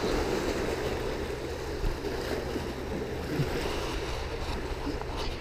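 Steady wind and waves, with a few faint clicks near the end.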